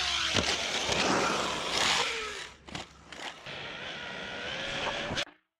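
Traxxas Sledge 1/8-scale RC monster truck running on 8S with a Spektrum 1250 kV brushless motor: motor whine rising and falling with the throttle over tyre noise on asphalt. The sound cuts off suddenly near the end.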